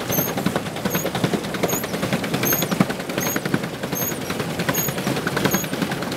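Pedal boat underway: its paddle wheel churns and splashes water in a steady, rapid patter, with a short high squeak repeating about every three-quarters of a second as the pedals go round.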